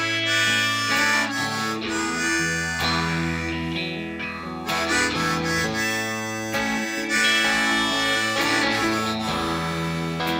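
Harmonica played close into a vocal microphone, carrying the melody over strummed acoustic guitar and band accompaniment: the instrumental intro of a song before the singing begins.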